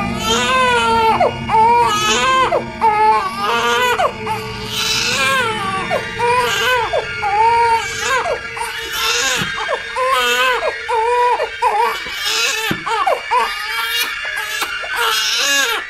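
A baby crying hard in repeated high, arching wails about a second apart, breaking off suddenly at the end.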